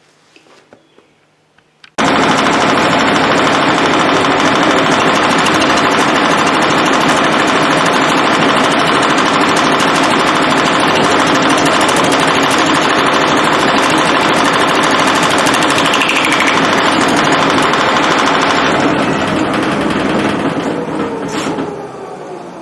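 Shopsmith running as a wood lathe with an off-centre wooden bowl blank spinning, a loud steady rattling clatter from the blank bouncing. The noise comes on suddenly about two seconds in, and near the end the machine winds down with a falling pitch.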